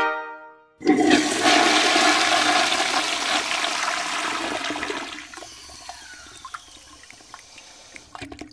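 Toilet flushing: a sudden loud rush of water about a second in that fades over several seconds into quieter gurgling.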